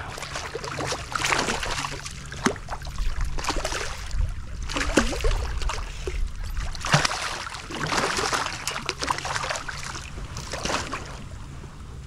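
Water splashing and sloshing around a kayak in irregular bursts, over a steady low rumble of wind on the microphone.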